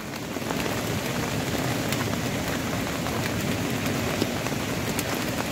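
Rain pattering steadily on the fabric of a tent.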